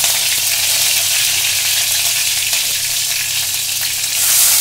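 Curry leaves sizzling with mustard and cumin seeds in hot oil in a kadhai, the tempering (phodni) stage, a steady loud hiss. Near the end the sizzle swells as chopped onion is dropped into the oil.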